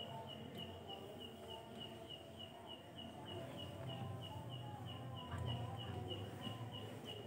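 Cricket chirping steadily, one short high note about four times a second, over a faint low hum.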